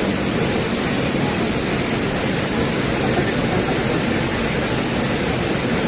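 Steady rushing of a river and waterfall close by, an even noise that does not change.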